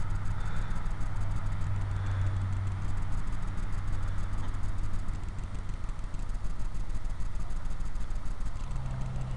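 An engine idling steadily with a low hum; its pitch steps up slightly near the end.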